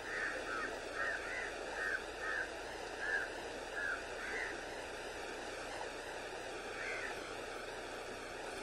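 Steady rushing of a wide, choppy river, with a run of short, high calls: about ten quick ones in the first four seconds or so, and one more about seven seconds in.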